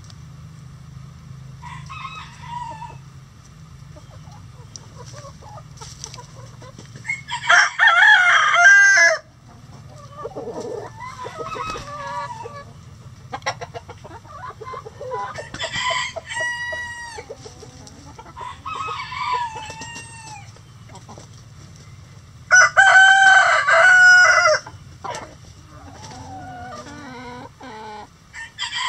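Backyard chicken flock calling and clucking, with a rooster crowing loudly twice, about seven seconds in and again after twenty-two seconds. Between the crows, hens give quieter short calls.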